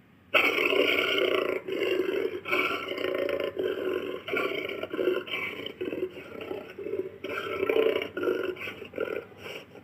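Giant jaguar roaring sound effect: a loud call starts suddenly about a third of a second in and runs on as a series of growling pulses, about two or three a second.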